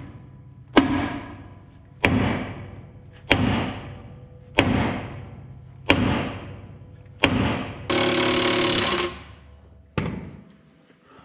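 Sledgehammer blows on the steel track roller and roller bolt of a Yanmar B37 mini excavator's undercarriage: six strikes about every 1.3 s, each ringing out. A steady noise of about a second follows near the end, then one more blow.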